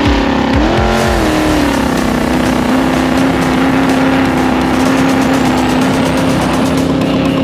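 Speedboat engine running under power. It revs up and down briefly in the first couple of seconds, then holds a steady high pitch at speed, with a rushing wash of noise underneath.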